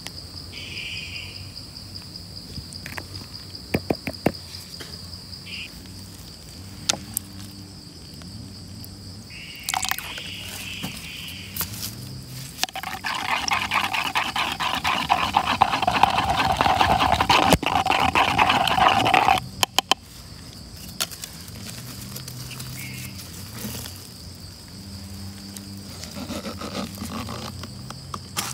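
A wooden stick stirring acid into fresh rubber latex in a collection cup, with scattered taps and scrapes against the cup, then about seven seconds of loud, harsh rapid scraping in the middle that stops abruptly. A steady high insect drone runs underneath.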